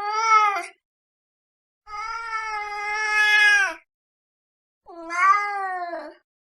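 Domestic cat meowing: three drawn-out meows with silence between them. The first is already under way and ends within the first second, and the middle one lasts about two seconds.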